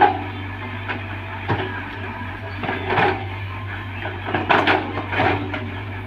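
Compact crawler excavator's diesel engine running steadily under load while its bucket scrapes and digs soil, with irregular clanks and knocks from the bucket and arm.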